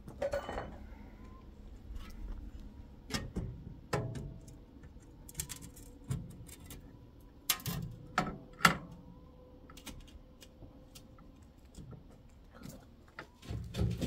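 Scattered knocks, taps and clinks of glass and metal as a pane of textured glass is pressed and fitted into a steel-barred window frame, the sharpest taps about three, four and eight and a half seconds in.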